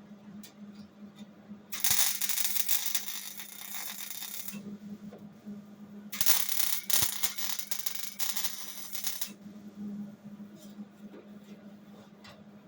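Welding arc crackling on sheet-metal body panel in two runs of about three seconds each, tacking a patch into a car's rear quarter panel, with a steady hum underneath throughout.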